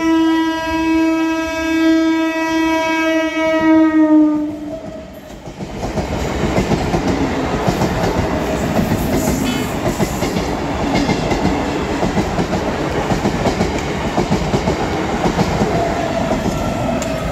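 Indian Railways MEMU electric train sounding one long horn note that drops slightly in pitch as it ends, then running past at speed with a steady loud rush and rattle of its wheels on the rails.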